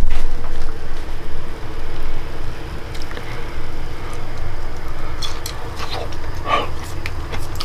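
Someone breathing and chewing while tasting a hot steamed green bean, with a few light clicks about five to six seconds in, over a steady low rumble.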